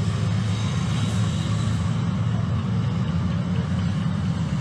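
Heavy truck's engine running close by, a steady low drone that holds even throughout.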